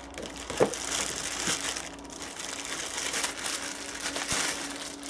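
Clear plastic bag crinkling and rustling as an orbital polisher is pulled out of it, with a couple of brief knocks.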